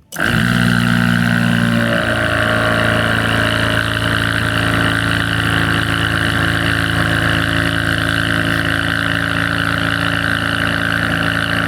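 ARB 12-volt onboard air compressor switched on and running steadily, pumping its air tank back up to pressure. It starts suddenly and runs loud and even, with a slight shift in its low hum about two seconds in.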